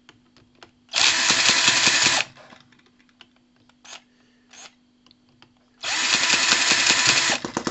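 Cordless drill spinning the flywheel shaft of a Microcosm H73 hit-and-miss model engine to crank it for starting, in two bursts of about a second each, about four seconds apart. Faint clicks come between the bursts.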